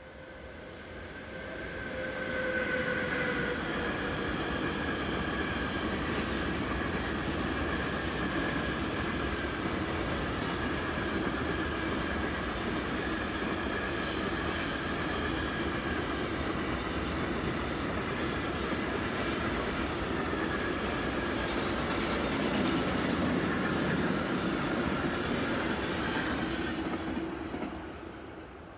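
Mixed freight train passing: the sound builds over the first couple of seconds as the train arrives, then the wagons roll by steadily for over twenty seconds before fading away near the end.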